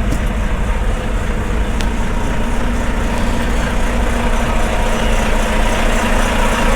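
Semi-truck diesel engine idling steadily, with one light click about two seconds in.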